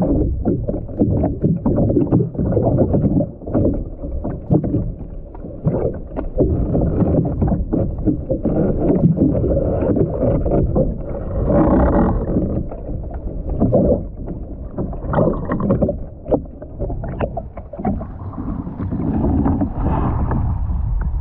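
Muffled underwater sloshing and knocking of sea water against a kayak-mounted action camera while the kayak is capsized. Near the end the kayak rolls upright and the sound opens into steady wind and water lapping around the hull.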